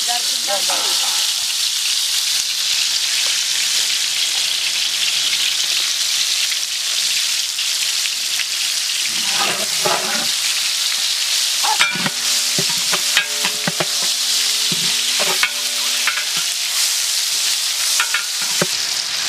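Oil sizzling steadily in a large aluminium pot as small tomatoes, shallots and whole spices fry. A long metal ladle stirs and scrapes across the pot's bottom, with clusters of scraping clinks about halfway through and again a little later.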